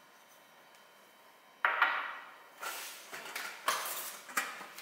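Ceramic dishes and a stainless steel pot with its lid clattering and clinking as they are taken out of a kitchen cabinet. About a second and a half in comes one loud clatter, then several lighter knocks and clinks.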